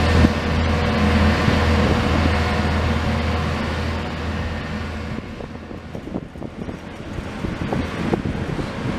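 Wheeled excavator's diesel engine running steadily with a low hum. About halfway through the hum drops away, leaving quieter scattered knocks and clatter of rail work.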